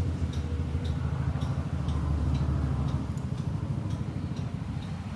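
Road traffic from a main road outside: a steady low engine rumble, with faint ticks about twice a second.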